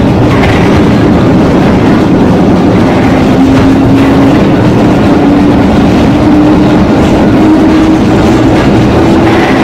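Loud running noise inside the motor car of an EN57 electric multiple unit as it accelerates. A whine from the traction drive climbs steadily in pitch as the train picks up speed.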